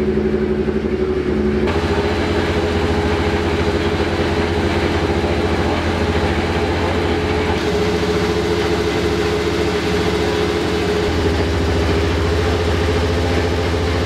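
Turbocharged engine of a Ford Fiesta rallycross car idling steadily, its note changing abruptly about two seconds in and again twice later.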